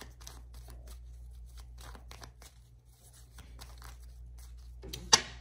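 Tarot cards being handled: a run of quick papery clicks and rustles that thins out midway, then picks up again into one sharp snap near the end.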